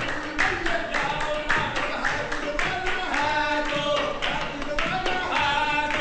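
Upbeat song with a singing voice and instruments over a steady beat of handclaps, about two a second.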